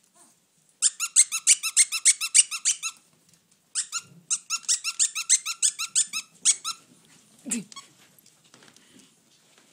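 Rapid high-pitched squeaking from a Pomeranian and a ferret at rough play, in two runs of about two to three seconds each, several squeaks a second. A single short thump follows near the end.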